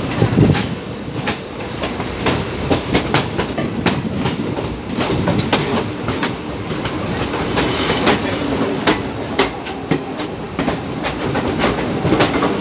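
Two passenger trains passing each other on adjacent tracks, heard from the open doorway of one coach. The wheels clatter rapidly over the rail joints above a steady rushing rumble.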